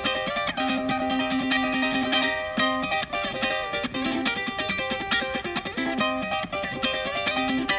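Fingerstyle guitar music: quick plucked notes over held lower notes, played as a steady background track.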